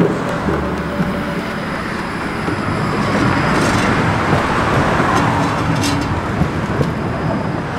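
A low-floor electric tram running past close below, the noise of its wheels on the rails swelling as it goes by and then easing.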